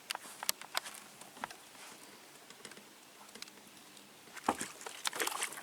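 Faint, scattered clicks and taps, with a few sharper knocks near the end.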